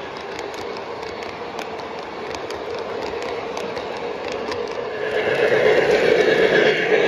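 O gauge model train rolling on three-rail track, with its passenger cars' wheels clicking over the rail joints as they pass. About five seconds in the rolling noise grows louder as the train comes near again.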